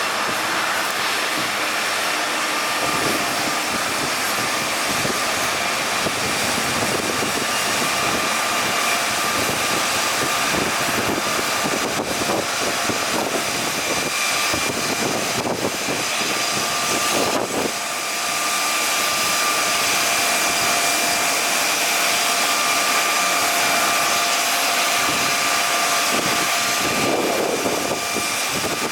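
Jet airliner engines running at low power on the apron: a steady rushing hiss with a high whine, getting slightly louder about two-thirds of the way through.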